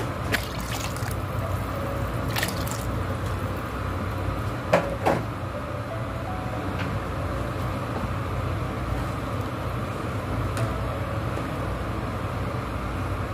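Thin curry sloshing and simmering in an aluminium pot as a steel ladle stirs it, with a few sharp clinks of the ladle against the pot, the loudest about five seconds in.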